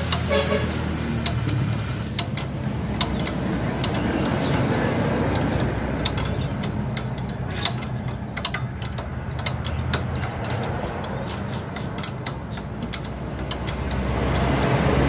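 Scattered sharp metallic clicks and taps of hand tools on metal during strut removal, over a steady low engine-like hum.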